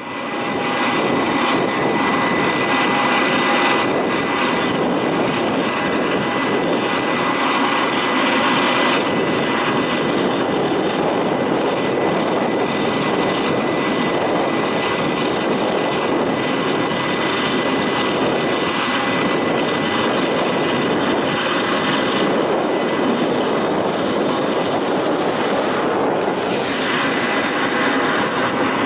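Boeing 737-800's CFM56-7B turbofan engines on final approach and touchdown: a steady, loud jet rush that holds level throughout.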